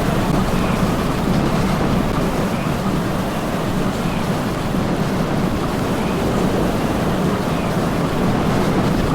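Steady rushing road and wind noise from a moving vehicle, with a low rumble underneath.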